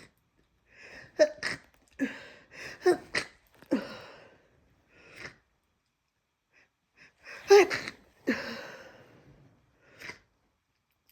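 A person with a head cold sneezing repeatedly. Several sneezes come in quick succession in the first four seconds, and two more follow, the loudest about seven and a half seconds in. Short snotty sniffs fall between them.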